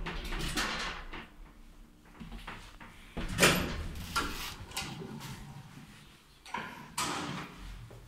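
The hinged steel landing door of a 1978 ZREMB lift being pushed open from inside the car: a sharp metallic clack about three and a half seconds in, followed by more knocks and clunks near the end as the heavy door swings.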